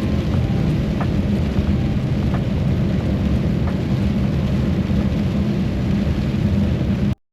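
Steady low rumble of a running heavy engine, cut off abruptly about seven seconds in.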